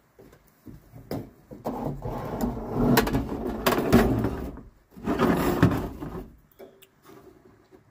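A portable Coleman grill being pulled out from under a plywood bed platform: scraping and knocking against the wood in two bouts, with sharp knocks about three and four seconds in.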